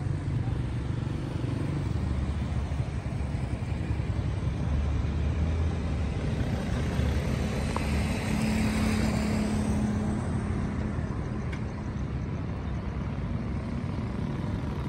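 Road traffic: a steady low rumble of car engines and tyres, with one vehicle passing close by about seven to ten seconds in.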